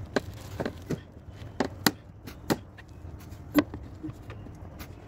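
A metal hand tool knocking against a black HDPE water pipe: about eight short, sharp knocks at irregular intervals, the loudest a little under two seconds in and about three and a half seconds in.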